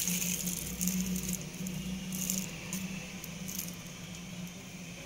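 Plastic food-prep glove crinkling and water sloshing in a steel bowl as a floured chicken piece is dipped and let go, in irregular rustles that die down after about three and a half seconds. A steady low hum runs underneath.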